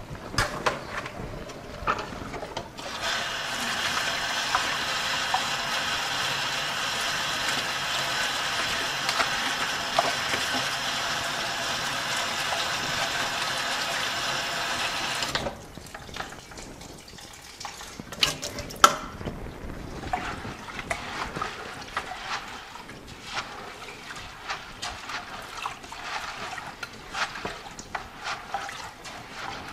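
Water from a garden hose pouring into a plastic bucket of seeds, which are being rinsed a second time to wash off dust and debris. The water runs steadily for about twelve seconds and then stops abruptly. After that, hands swish and splash the seeds around in the water, with a couple of sharp knocks.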